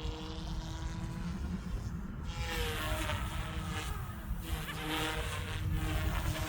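Goosky S2 electric RC helicopter in flight: a steady motor whine with rotor buzz. The pitch shifts and the sound grows brighter about two and a half seconds in.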